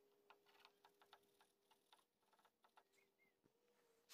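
Near silence with faint light clicks and scratches from a metal pick scraping dried gunk off a small-engine carburetor part.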